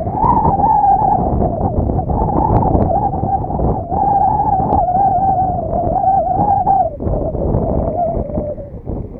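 Drone of a 35cc NGH gas engine and propeller on a Hangar 9 Valiant RC plane in flight: a steady wavering tone that dips in pitch and level about seven seconds in, then picks up again. Heavy wind rumble on the microphone runs under it.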